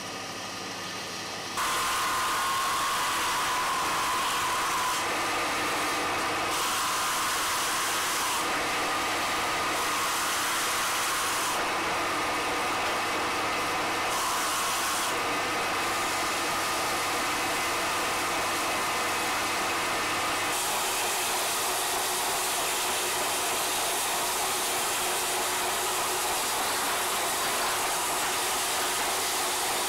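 Belt-driven stone lathe running steadily while a hand-held tool cuts into a spinning soapstone block, a steady machine hum with a hiss from the cutting. It gets louder about a second and a half in.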